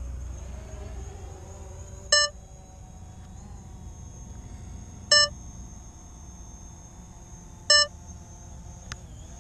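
Three short electronic beeps a few seconds apart, over a faint steady whine.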